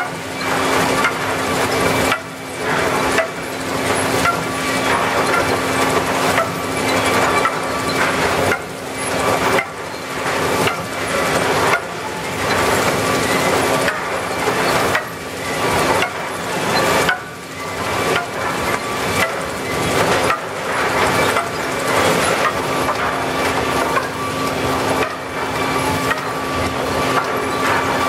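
Planer mill lumber line running: a steady machinery hum with a faint higher whine, under frequent irregular wooden clacks and knocks as boards move along and drop onto chain conveyors.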